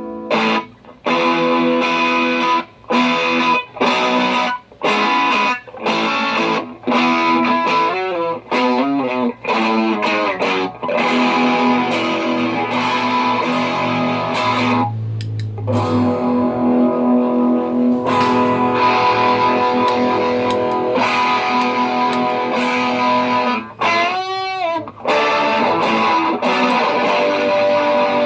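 Electric guitar played through a pedalboard with a distorted tone: short chord stabs cut off sharply at first, then longer ringing chords. Twice the pitch wavers, and near the end a pitch-bending effect makes the notes swoop up and down.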